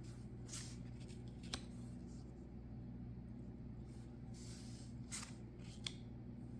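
Faint handling of Magic: The Gathering cards and their packaging: a few soft rustles and light clicks, over a steady low electrical hum.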